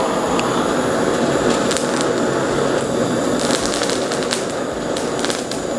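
Handheld kitchen blowtorch burning with a steady hissing flame, roasting scotch bonnet peppers and garlic on foil.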